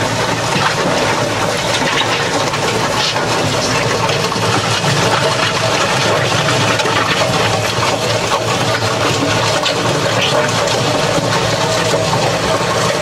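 Yanmar diesel tractor running steadily under load, driving a rotary soil-milling trencher that churns through earth mixed with stones, a continuous rushing noise with a few sharp ticks of stones struck.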